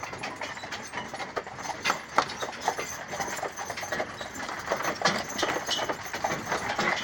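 Clip-clop of two carriage horses' hooves, a Haflinger and an Appaloosa pulling a carriage along a path, in a quick, uneven run of sharp strikes.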